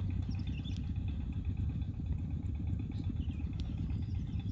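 A small engine running steadily with a fast, low putter.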